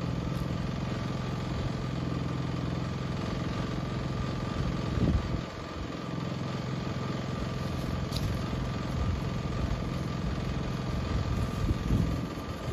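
Small engine running steadily. Its level drops briefly about five and a half seconds in, and a faint click comes about eight seconds in.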